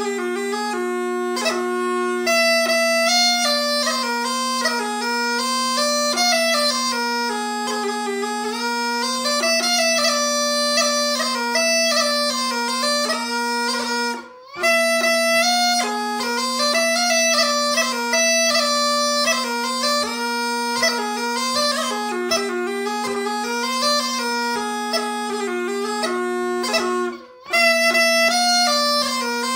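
Swedish bagpipe (säckpipa) fitted with a copy of the Mockfjärdspipa chanter, playing a traditional Dalarna wedding march as a melody over a steady drone. The pipe breaks off for a moment twice, about halfway through and near the end, then plays on.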